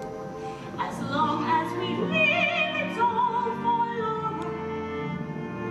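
Musical-theatre singing in an operatic style over orchestral accompaniment, with held notes carrying a wide vibrato.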